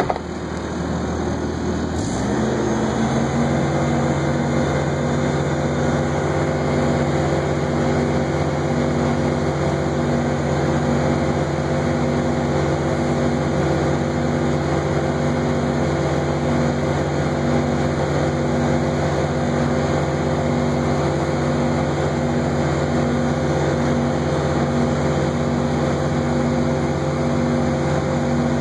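Propane engine of a Nilfisk Advance Captor 4800 sweeper-scrubber running steadily, burning off the propane left in the fuel line after the tank's service valve has been shut, not yet starving. About two seconds in there is a click, and a steady pitched hum with a regular pulse joins the engine noise.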